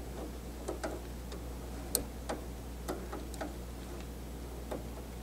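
Small irregular clicks and taps of fingers working the printhead wiper's retaining tabs inside a Roland BN-20 printer, one sharper click about two seconds in, over a steady low hum.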